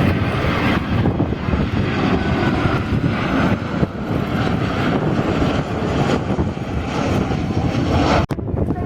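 Boeing P-8A Poseidon's twin jet engines rumbling steadily as it flies a display pass, the sound heaviest in the low end; it cuts off suddenly near the end.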